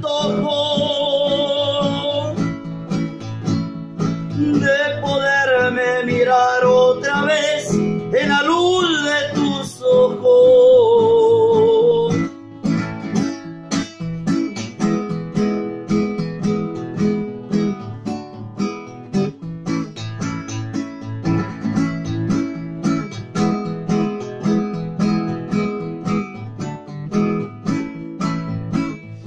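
Classical guitar accompanying a man's singing voice of long, wavering held notes for about the first twelve seconds, then the guitar alone plucking an instrumental passage.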